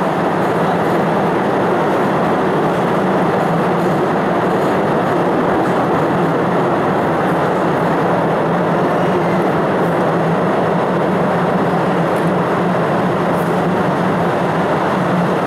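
Open-carriage cave tourist train running steadily along its track: a continuous rumble of wheels and carriages, heard from on board.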